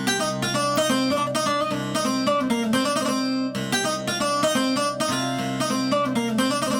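Sampled Middle Eastern plucked string instrument playing a quick melodic phrase of picked notes over a steady low drone.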